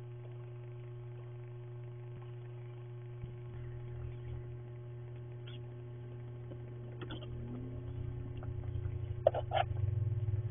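Steady electrical hum from a security camera's microphone. A faint rapid scraping builds about eight seconds in, with two sharp clicks near the end.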